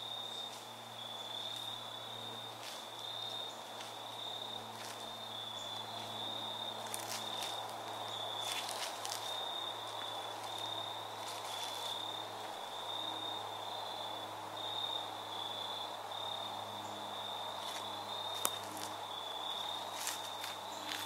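Footsteps crunching through dry fallen leaves, coming closer and getting louder toward the end, over a steady high-pitched insect trill.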